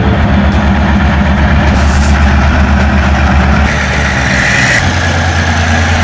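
Diesel locomotive engine running close by as the locomotive rolls slowly alongside, a loud, deep, steady throb whose note shifts about five seconds in. A short hiss comes about two seconds in and a longer one about four seconds in.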